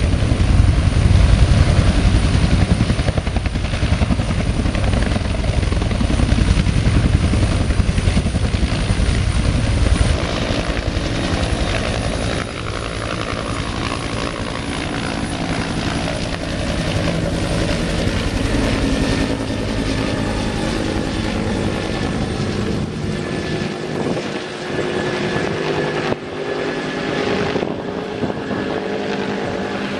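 Agusta-Bell AB212 military helicopter: the two-bladed main rotor beats loudly with the turbines running as it hovers low. After about twelve seconds it is quieter and gradually thins as the helicopter flies off into the distance.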